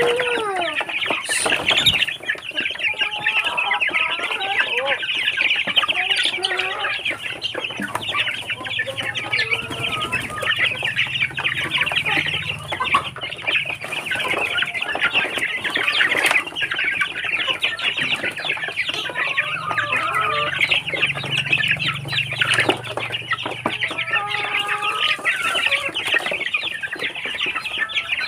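A flock of Barred Plymouth Rock chickens and their growing chicks clucking and chirping continuously as they crowd the feed trays, with wings flapping now and then.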